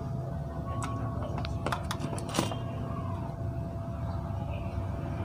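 A handful of sharp clicks and taps, the loudest about two and a half seconds in, as a tool and small parts are handled on a TV power-supply circuit board, over a steady low hum with a faint constant tone.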